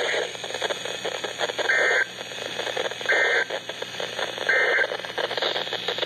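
A Midland NOAA weather radio sends three short bursts of warbling EAS data tone about 1.4 s apart over radio hiss. These are the end-of-message codes that close a weather alert broadcast.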